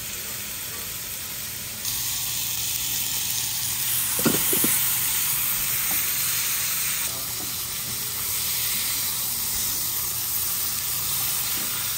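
Bone-in steak sizzling as it sears in a frying pan over a gas flame. The sizzle is steady and grows louder about two seconds in, with a brief louder moment about four seconds in.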